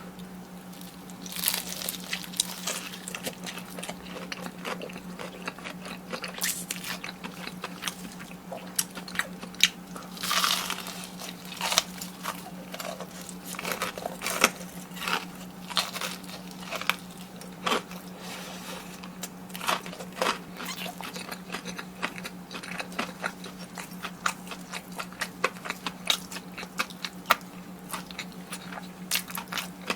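Close-miked eating: crunchy bites into fried food, with chewing and irregular crackling crunches.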